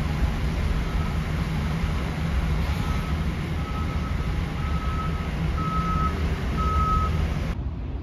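Construction vehicle's reversing alarm beeping about once a second, growing louder, over the steady low rumble of a car driving, heard from inside the car.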